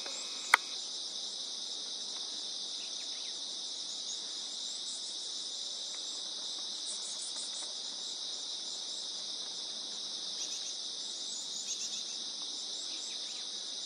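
Steady, high-pitched chorus of insects, unbroken throughout. A single sharp click sounds about half a second in, and a few faint, short high chirps come and go over the drone.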